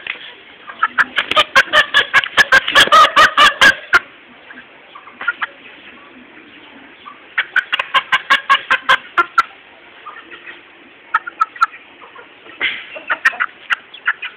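Aseel chickens clucking in several bursts of quick, short calls.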